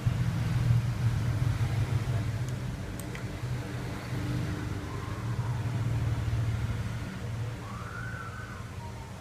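Low rumble of road traffic that swells twice and fades, with a faint wavering tone late on and two light clicks about three seconds in.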